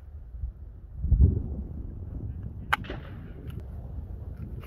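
Handling noise from a CZ Scorpion Evo 3 with its stock folded being jostled: a low bump about a second in, then a few short, sharp clicks from the folding stock and its hardware.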